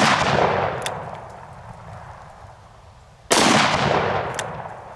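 Magnum Research BFR single-action revolver in .30-30 Winchester being fired. The report of a shot fired just before fades away at the start, and a second shot goes off about three seconds in, its report rolling away over the next second. A short sharp click comes about a second after each shot.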